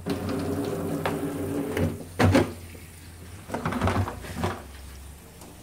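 Water running from a kitchen tap into a plastic basin, with a steady hum for the first two seconds. A sharp knock about two seconds in, then a short clatter of plastic bowls and a metal strainer being handled at the sink.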